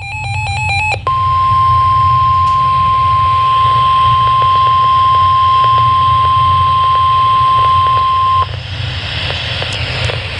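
Emergency Alert System signal for a severe thunderstorm warning, as broadcast over weather radio. It opens with the last of a warbling burst of digital header tones, then holds one steady, piercing alert tone for about seven seconds over radio hum and hiss. The tone cuts off abruptly, leaving only static crackle, the cue that the spoken warning is about to begin.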